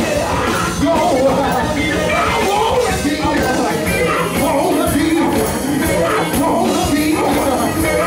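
Live gospel music: a male lead singer sings into a handheld microphone over a band of drums, electric guitar and keyboard, playing steadily throughout.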